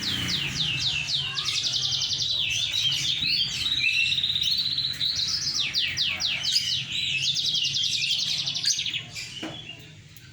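Moken, a yellow-fronted canary × domestic canary hybrid, singing a fast, continuous song of rapid repeated descending notes and buzzy trills. The song breaks off near the end.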